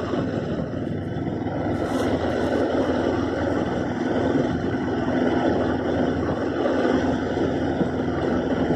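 Flats boat's outboard motor running steadily: an even low hum under a rushing noise.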